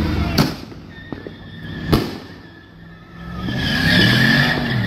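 Two firework bangs in the first two seconds. Then, from about three and a half seconds in, a car engine revs up and down while its tires squeal on the pavement.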